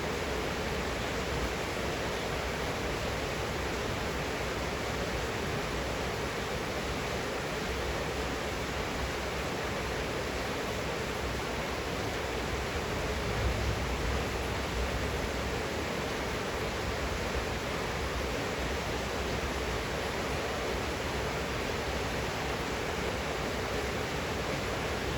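Steady rain falling, an even hiss with no let-up, and a brief soft low thud about halfway through.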